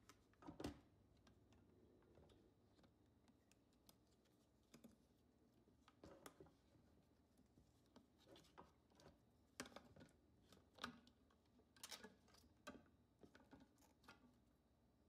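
Faint clicks and light knocks of a stainless-steel pressure cooker lid being handled and its rubber sealing ring pulled off the lid's rim. One louder knock comes about half a second in, then a run of small clicks and taps through the second half.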